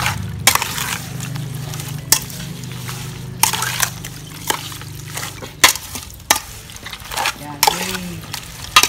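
A metal ladle scrapes and knocks against the side of a large aluminium pot as raw chopped chicken and fresh herbs are stirred and mixed together. There is a sharp scrape or knock about every second over the rustle of the mix.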